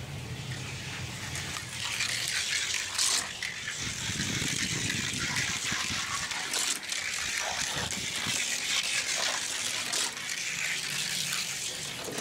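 Weighted Hot Wheels Rodger Dodger 2.0 die-cast car rolling down a gravity race track: a steady rushing rattle of its small wheels on the track, with scattered clicks and knocks as it runs over the track joints.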